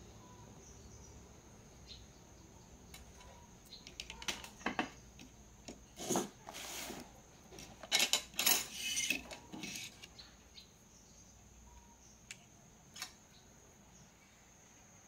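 Light clicks, taps and short scrapes of hands handling a TV power-supply circuit board and multimeter test probes on a tabletop, busiest in the middle, over a faint steady high-pitched tone.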